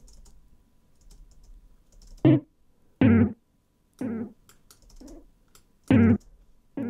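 Short pitched guitar-sample notes coming through Ableton Live's Echo delay with its noise gate on, each cut off abruptly. From about two seconds in they pass in irregular bursts roughly a second apart, as the gate threshold is lowered and more of the signal gets through.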